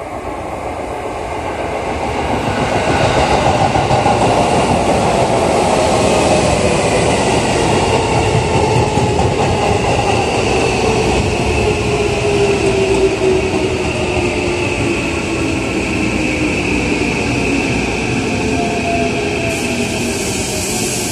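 Tokyo Metro 15000 series electric train pulling into a station and braking: wheels rumbling on the rails while the motors' whine falls steadily in pitch as it slows. A hiss starts suddenly near the end.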